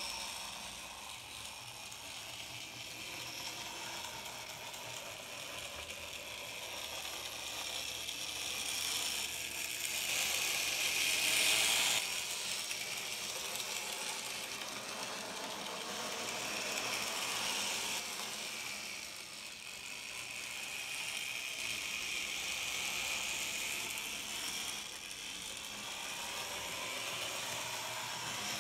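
N gauge model trains running on the layout's track: the whir of the small electric motors and the fine clicking of wheels over rail joints, swelling and fading as the trains pass. It is loudest about eleven seconds in, then drops away suddenly.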